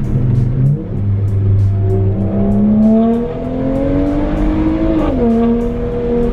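BMW 335i turbocharged inline-six pulling in second gear on a test run for a suspected misfire. Revs climb steadily for about four seconds, then drop sharply about five seconds in and settle, heard from inside the cabin.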